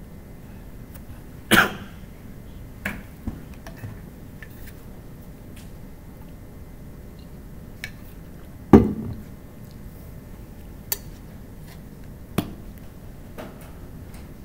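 Quiet room hum broken by a handful of short, sharp sounds; the two loudest come about a second and a half in and just before nine seconds, with fainter ticks and knocks between.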